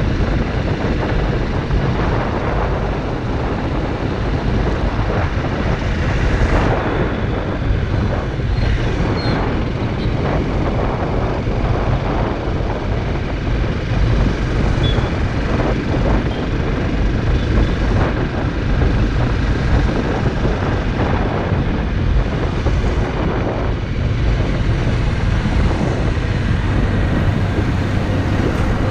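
Honda CRF motorcycle running steadily under way, its engine and road noise mixed with wind buffeting the microphone.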